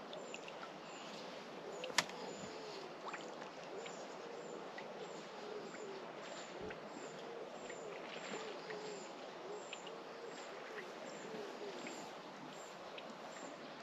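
A wild pigeon cooing repeatedly in soft phrases over quiet lakeside ambience, with a single sharp click about two seconds in.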